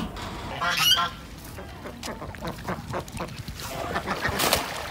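Domestic ducks quacking: one loud call about a second in, then more scattered calls.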